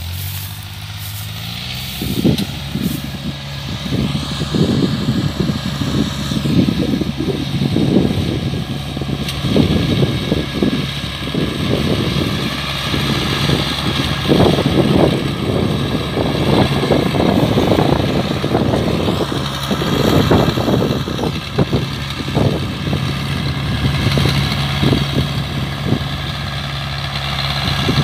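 Kubota combine harvester's diesel engine running steadily under load, picking up in pitch and loudness in the first couple of seconds, with uneven rattling and knocking from the machine on top.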